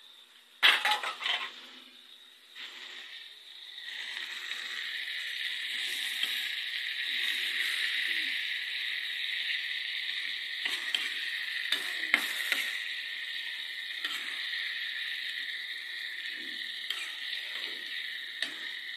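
Metal spatula scraping and clattering against a metal wok while stirring pork with shrimp paste and tomatoes. There is a loud clatter about a second in and scattered sharp knocks and scrapes after it, over a steady high hiss.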